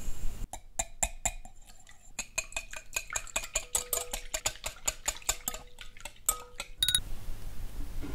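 Wire whisk beating egg, milk and sugar in a glass mixing bowl, its wires clicking quickly and steadily against the glass. The clicking stops abruptly about a second before the end.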